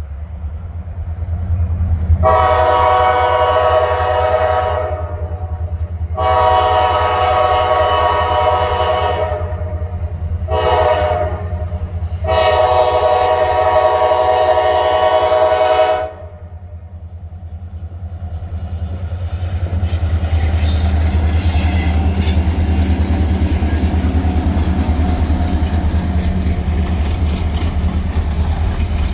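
Diesel freight locomotive blowing its horn for a grade crossing in the long, long, short, long pattern over the low rumble of its engine. After that the train passes, with the steady rumble and clatter of cars on the rails.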